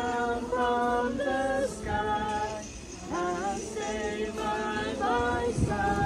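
Group of mixed voices singing a Christmas carol, a slow melody of held notes changing step by step.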